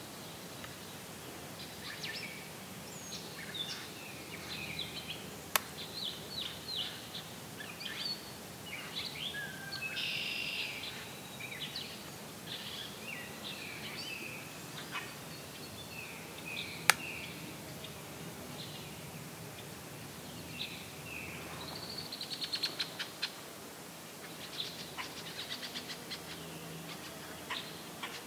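Several songbirds singing and calling, with many short chirps and warbles, and fast trills near the end. Two sharp clicks stand out, about six and seventeen seconds in.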